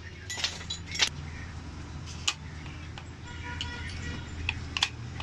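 Metal clinks and taps from tools and parts being handled during hand reassembly of a diesel fuel injection pump: a few sharp strikes, about a second apart at first and then more spread out, over a steady low hum.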